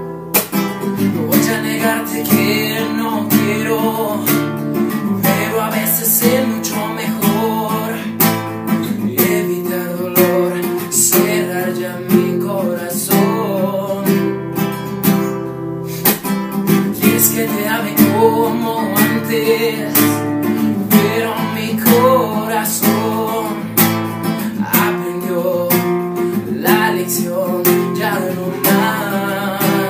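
Acoustic guitar strummed and picked in a steady rhythm, with a man's voice singing the melody over it.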